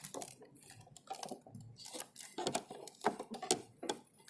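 Scattered light clicks and taps of hands working the plastic control knob and cover of a Haier electric water heater; the knob is held by side locks and does not come off.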